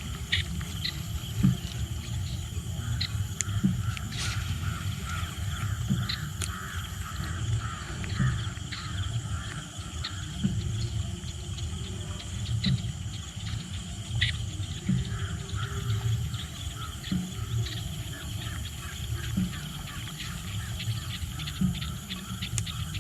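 Outdoor jungle ambience: a steady high insect drone, with scattered short chirps and clicks over a low rumble on the microphone.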